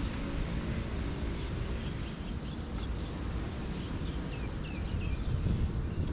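Outdoor ambience: a steady low rumble, with a bird giving a series of short falling chirps from about three seconds in.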